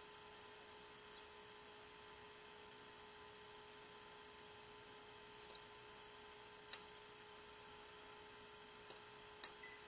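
Near silence with a faint steady electrical hum and a couple of faint ticks.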